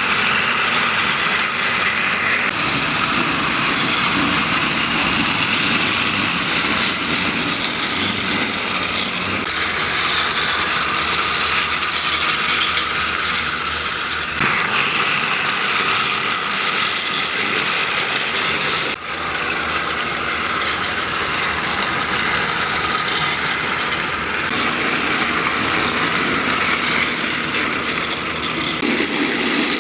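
Battery-powered Trackmaster toy train running on plastic track: a steady motor whir with the rattle of wheels and trucks, changing abruptly a few times.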